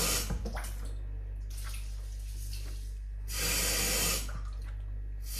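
Kitchen tap running into the sink in short bursts, turned off just after the start, on again for about a second past the middle and again near the end, with a few light knocks in between.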